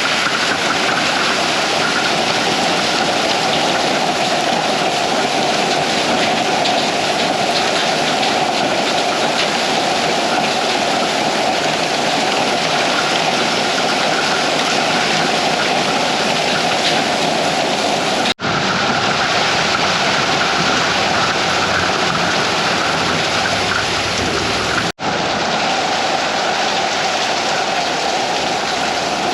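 Heavy thunderstorm rain pouring down, a loud, steady rush of water. It breaks off for an instant twice, about 18 and 25 seconds in.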